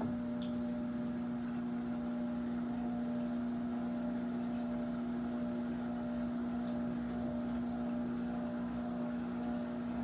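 Turbo LT11F 10 kg washing machine running with a steady motor hum, a strong low tone holding even throughout, with faint scattered ticks.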